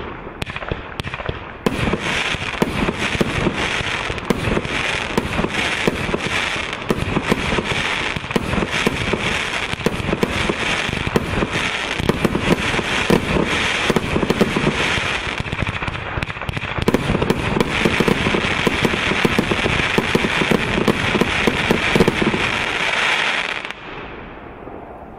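Compound fireworks battery (a consumer 'Finale XXL' cake) firing a dense, continuous barrage of shots and crackling bursts, which stops fairly suddenly near the end and leaves a fading tail of crackle.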